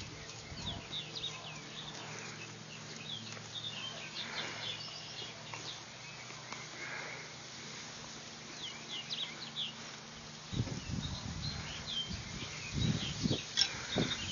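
Small birds chirping in the background, with short high calls scattered throughout. From about ten seconds in, bouts of low, muffled rumbling noise come in and grow louder near the end.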